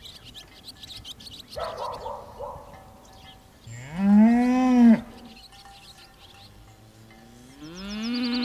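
A cow mooing twice, each call about a second long, rising and then held. Small birds chirp around it.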